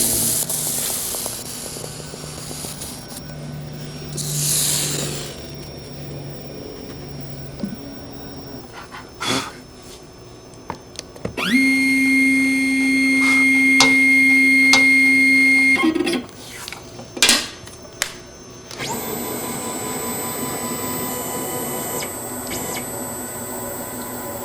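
CNC router motors running in two steady spells. About halfway through, a motor spins up with a short rising whine and holds a steady hum for about four seconds. After a few clicks, a higher-pitched whine runs until shortly before the end.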